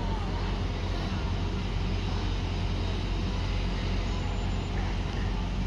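Class 175 diesel multiple unit running in slowly alongside the platform, its underfloor diesel engines giving a steady low drone.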